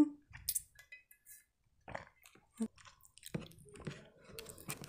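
Close-miked mouth sounds: a short sip of tea through a straw, then soft chewing and swallowing with scattered small wet clicks.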